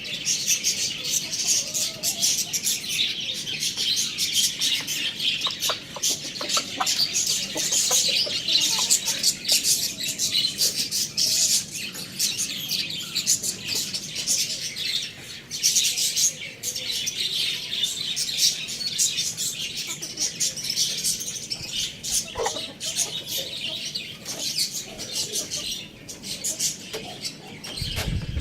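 Many small birds chirping and chattering at once, a dense, unbroken mass of high chirps.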